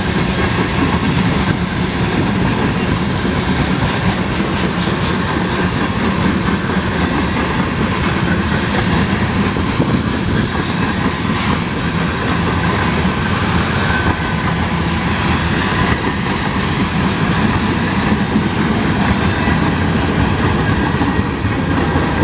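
Freight cars of a mixed freight train rolling past, covered hoppers then tank cars: a steady, loud rumble and clatter of steel wheels on the rails, with wheels clicking over rail joints.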